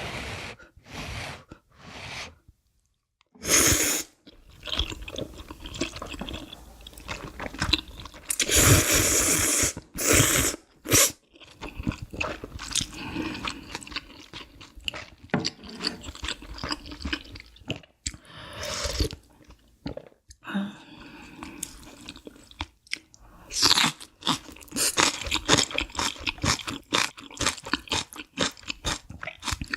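Close-miked crunching and chewing of food, ASMR-style mukbang eating sounds: irregular crisp crunches and mouth sounds, with louder crunching spells about four seconds in and again around nine to ten seconds.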